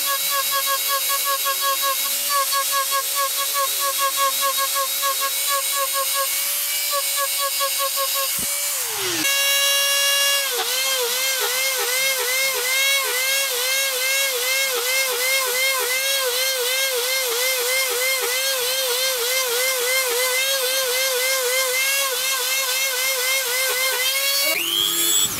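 Rotary power tool whining steadily as a concave eye cutter bit is pressed into wood again and again, its pitch dipping briefly with each cut, about two to three times a second. About nine seconds in, the motor winds down and starts up again, and near the end it speeds up.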